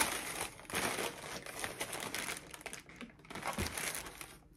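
Tissue paper rustling and crinkling as a boot box is unpacked, a dense run of crackles, with a soft low bump of the cardboard box about three and a half seconds in; the rustling thins out near the end.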